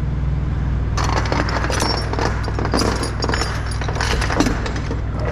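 Steel tie-down chains clinking and rattling as they are handled and hooked around a steel coil, many sharp metallic clinks starting about a second in, over a steady low hum.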